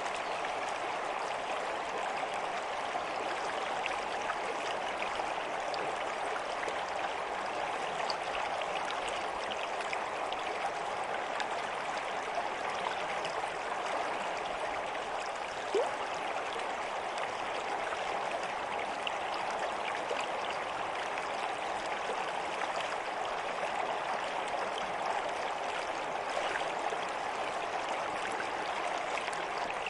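Water running steadily in a stream, a continuous babbling rush, with one brief louder blip about halfway through.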